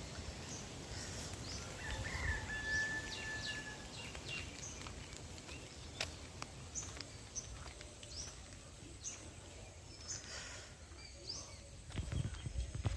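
Birds chirping outdoors: many short, high chirps scattered throughout, with one held whistled note about two seconds in. A low rumble comes in near the end.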